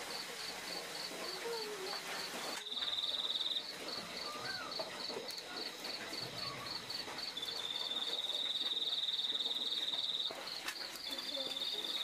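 Crickets chirping: one high chirp repeating about three times a second throughout, with a second insect's continuous high trill that starts and stops a few times.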